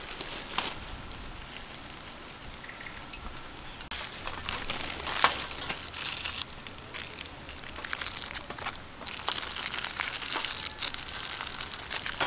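Thin plastic polythene sheet crinkling and rustling in the hands as it is wrapped and rolled around strips of dried mango leather, with many sharp crackles.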